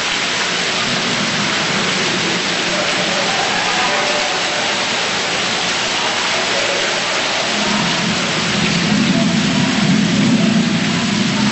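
Water pouring down the artificial rock cliff of a simulated flash-flood exhibit, a steady rushing hiss like heavy rain. A deeper rushing sound swells and grows louder about eight seconds in.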